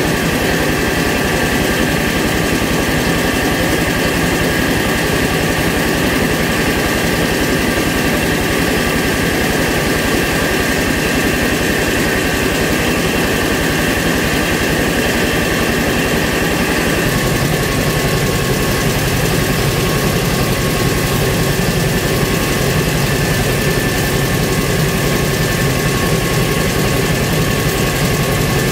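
Mobile rice milling machine running steadily, a continuous mechanical drone with a steady high whine, as milled rice pours out of its outlet. The low rumble shifts about two-thirds of the way through.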